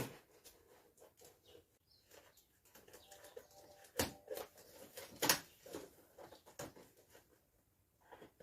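Vacuum cleaner packaging being opened and handled: scattered rustles and light clicks, with a couple of sharper knocks about four and five seconds in.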